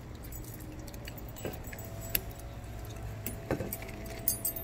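Dog collar tags jingling in a few short metallic clinks as the dogs eat, over a low steady background hum.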